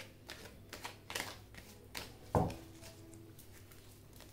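Tarot cards being handled and shuffled: a run of short flicks and taps, with a louder thump about two and a half seconds in, then quieter.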